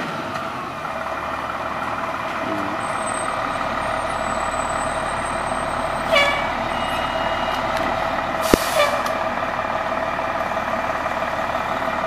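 A fire engine's diesel engine running steadily close by. About six seconds in there is a short falling tone, and about eight and a half seconds in a brief hiss of released air from its air brakes.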